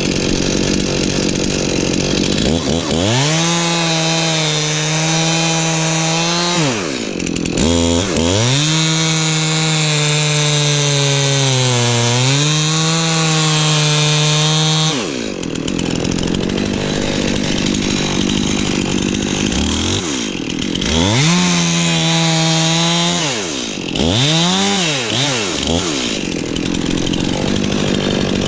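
Stihl two-stroke chainsaw at full throttle cutting into a large tree trunk to fell it. The engine pitch sags as the chain bites into the wood, and it drops off and comes back up several times as the throttle is let off and squeezed again.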